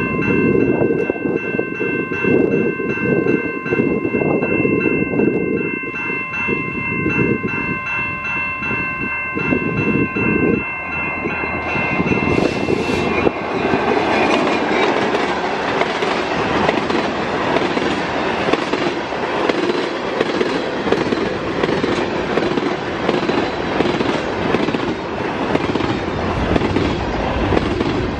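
A level-crossing warning bell rings steadily, signalling an approaching train. About twelve seconds in, a GMTX diesel locomotive and its train of freight cars pass close by, loud with engine noise and wheels clattering over the rail joints.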